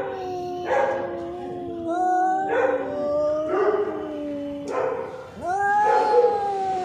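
Two cats yowling at each other in a standoff: long, overlapping wails, one low and steady, the other higher, swelling and falling in repeated drawn-out calls. This is the threat yowling cats make before a fight.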